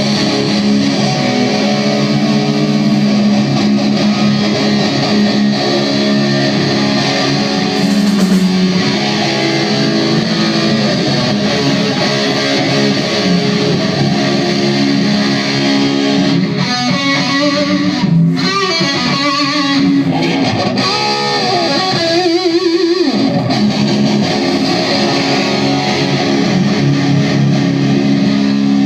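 Distorted electric guitar playing heavy, sustained chords and riffs. Past the middle it thins to a quieter passage that ends in a downward pitch slide before the full chords come back.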